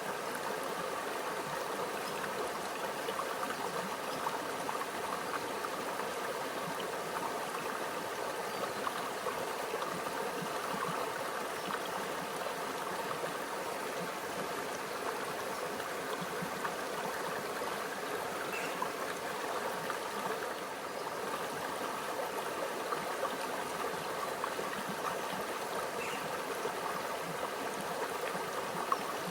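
A quiet stream flowing steadily, an even babble and trickle of water with no breaks.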